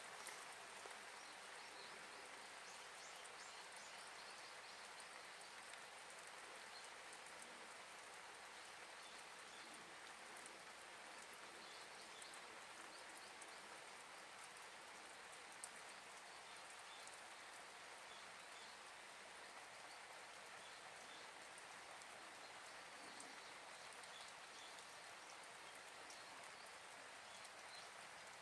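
Faint scattered crackles of split kindling burning in a steel fire pit, over a steady background hiss.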